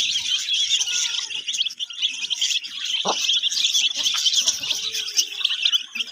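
A brood of young chicks peeping continuously, many rapid high cheeps overlapping, with one short lower sound about three seconds in.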